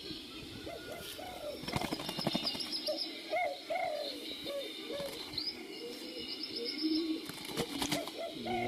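Doves cooing over and over in low, arched notes, with two short spells of wing-flapping, one about two seconds in and one near the end, and faint high chirps behind.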